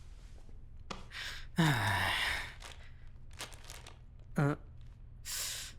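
A person's long, breathy sigh falling in pitch, about one and a half seconds in, followed later by a short falling vocal sound and a breathy exhale near the end.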